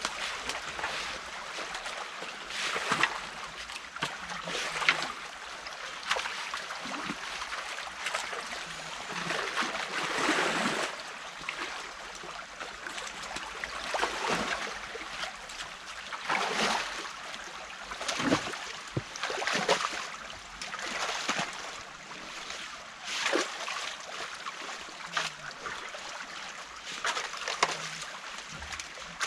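Stream water running steadily through a beaver dam being taken apart by hand, with repeated splashes and sloshes every second or two as the dam is worked.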